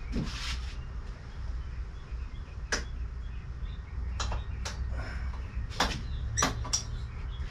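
About six short, sharp clicks and knocks as the Suzuki 6 hp outboard's metal clamp bracket is worked on a wooden 2x4 stand, over a steady low hum.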